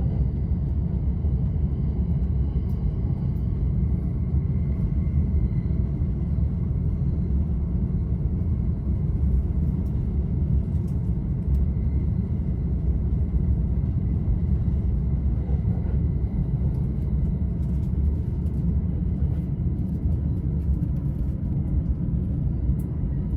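Commuter train running at speed, heard from inside the passenger car: a steady low rumble of wheels on rail and running gear.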